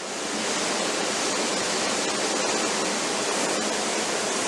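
A 'strong wind' sound effect previewed from a sound library: a steady, dense rush of wind noise.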